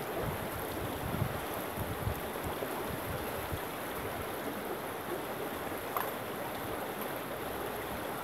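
Shallow stream rippling over rocks, a steady rushing of water, with a few faint knocks.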